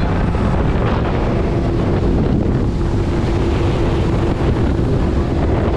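Wind buffeting the microphone over a 150 hp outboard motor running steadily at speed and water rushing past the hull of a moving boat. The sound is a loud, even rush with no breaks.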